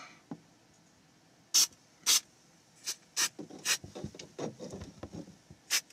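3M Super 77 aerosol spray adhesive let off in about six short, sharp bursts, with quieter rubbing and handling of the trim fabric in between.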